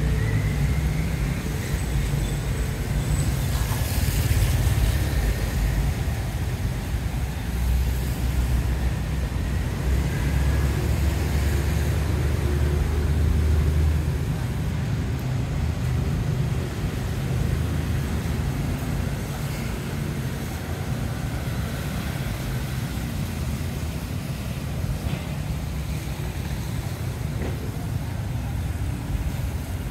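Outdoor street ambience made up mostly of a steady low rumble, heavier for the first half, with a faint even hiss above it.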